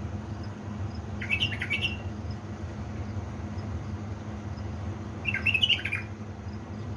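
A caged bulbul sings two short, warbled phrases, one about a second in and one about five seconds in. A steady low hum runs underneath.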